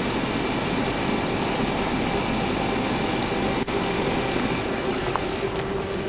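Steady rushing of a running patrol car's air-conditioning blower and engine, heard from inside the car, with a faint steady hum; the sound cuts out for an instant a little past halfway.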